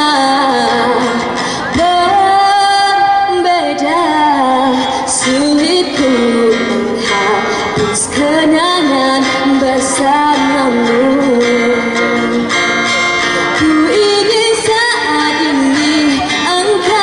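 A woman singing into a microphone, accompanying herself on a steel-string acoustic guitar, amplified over the stage speakers.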